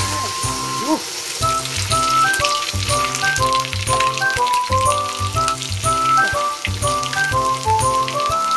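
Hot oil sizzling and crackling as battered pieces deep-fry in a stainless pot on a gas camp stove, the oil spattering. Background music with a steady beat plays over it.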